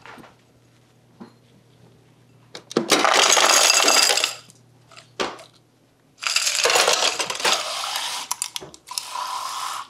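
Ice cubes from a refrigerator's door ice dispenser clattering into a glass. There is a loud burst of just over a second, then after a pause a longer run of several seconds of rattling and clinking.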